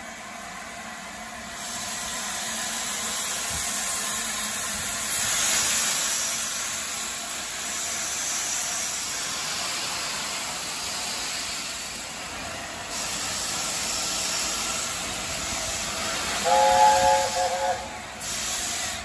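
LNER A4 Pacific 60007 Sir Nigel Gresley hissing steam from its cylinder drain cocks as it pulls away. Near the end comes a short blast of its chime whistle, sounding as a chord of three notes.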